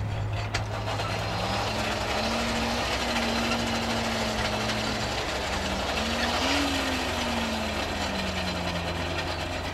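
Hand-cranked forge blower whirring, forcing air into the coal fire to bring the iron back to heat; its whine rises and falls with the cranking speed, peaking about two-thirds of the way through and then slowly winding down. A steady low hum runs underneath.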